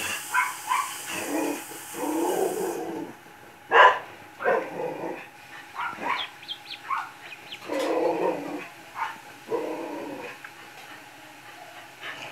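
Repeated short animal calls, a mix of yips, whines and thin high peeps, one every half second to a second, with a sharp loud call about four seconds in.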